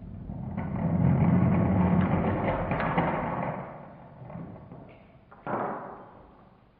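Lego carriage rolling down a cardboard inclined plane and across a wooden floor: a rumble that builds, is loudest in the first few seconds, and fades out. A short thud follows about five and a half seconds in.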